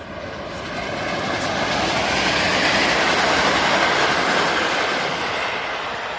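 EP07 electric locomotive hauling two passenger coaches passing at speed, its wheels rumbling on the rails. The noise swells to a peak about three to four seconds in as the train goes by, then fades as it draws away.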